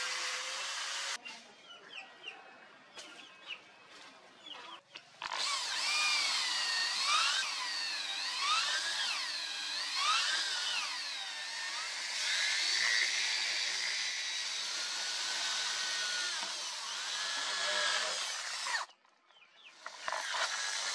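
An angle grinder runs briefly on a steel ferrule, then a few seconds of quieter clicks and taps. An electric drill then bores into a wooden knife handle through its steel ferrule, its whine sagging and recovering over and over as the bit bites into the wood. The drill stops sharply near the end.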